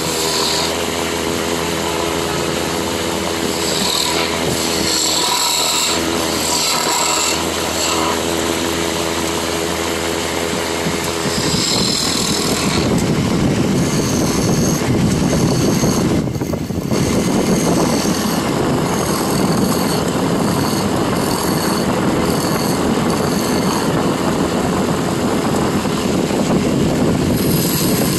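Wood lathe running with a steady motor hum while a hand chisel cuts a spinning wooden blank. About twelve seconds in, the sound turns louder and rougher.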